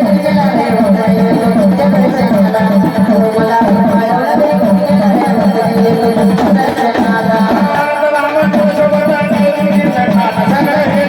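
Traditional Indian folk music: a melodic instrument playing a wavering tune over a steady low drone, with tabla-like percussion, continuous throughout.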